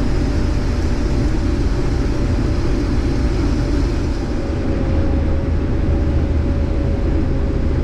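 Case IH 2388 combine running while harvesting corn, heard from inside the cab: a steady, loud engine and threshing-machinery drone with a faint steady whine over it.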